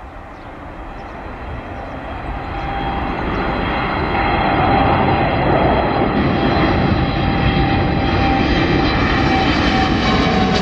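Boeing 787-8 Dreamliner's twin jet engines at climb thrust just after takeoff. The roar grows louder over the first five seconds as the plane approaches overhead, then holds steady, with a whine running through it that starts to drop in pitch near the end.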